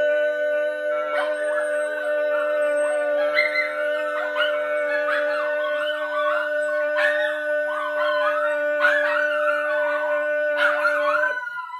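A dog howling in long wavering wails that rise and fall, over a steady held musical tone that cuts off near the end.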